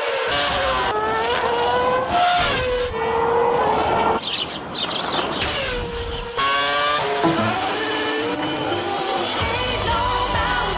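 Edited soundtrack of racing car engines revving up and down, with tyre squeal, cut together in short pieces that change abruptly every couple of seconds.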